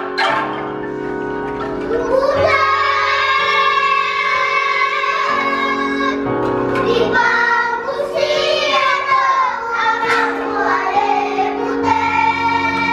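Children's choir singing over a sustained instrumental accompaniment, the voices coming in about two seconds in.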